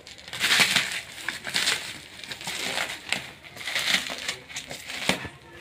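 Clear plastic wrap on a long parcel crinkling and crackling in irregular bursts as hands pull and work at it to unwrap it.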